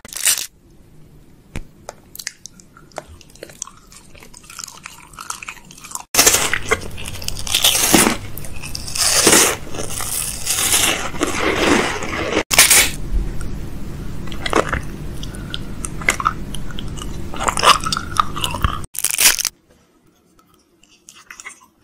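Close-miked mouth sounds of biting and chewing a hard, crunchy snack. Faint scattered clicks at first, then about six seconds in loud, dense crunching that stops abruptly near the end.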